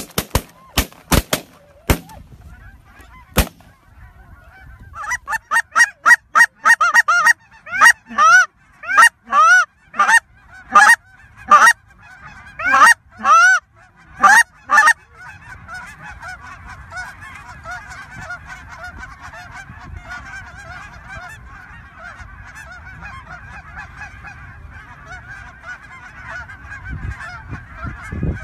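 A quick volley of shotgun shots in the first few seconds, then loud close goose calls every half-second or so for about ten seconds, giving way to the steady clamour of a large flock of geese calling.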